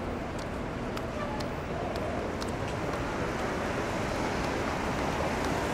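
City street traffic on rain-wet pavement: a steady wash of tyre and engine noise that grows a little louder, with a few faint ticks.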